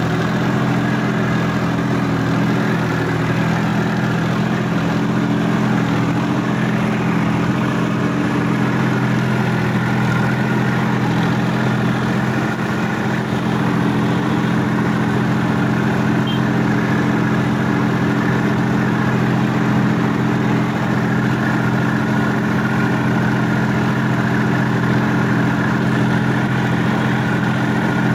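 Sonalika DI-50 RX tractor's diesel engine running steadily under load, heard from the driver's seat as the tractor pulls through deep wet mud.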